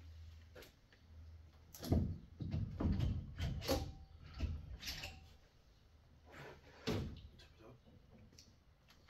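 Metal clunks and knocks as the cylinder head of a Ford 300 inline-six is worked loose and lifted off the block. The loudest knock comes about two seconds in, a cluster follows over the next few seconds, and one more comes near the end.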